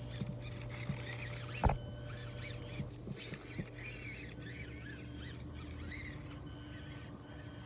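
Axial SCX24 1/24-scale RC crawler working slowly over rocks: a faint steady motor and drivetrain hum, with light clicks and knocks of the tyres and chassis on stones and one sharp knock about two seconds in. A run of high, squeaky chirps comes through in the middle.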